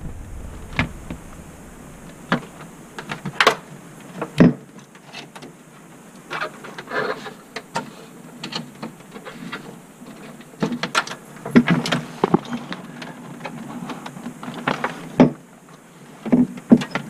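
Irregular clicks, knocks and scrapes of cables being handled and plugged into the rear ports of a desktop computer.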